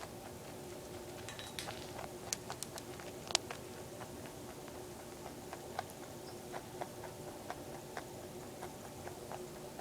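A pet rabbit crunching dry Cheerios: small, crisp, irregular crunches, coming thickest in the first few seconds, over a steady faint hum.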